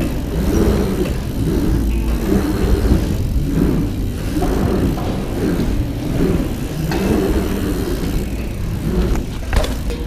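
Mountain bike tyres rolling over the rollers and berms of a pump track, a steady rumble that swells and fades about once a second as the bike is pumped over each hump. A few sharp knocks come near the end.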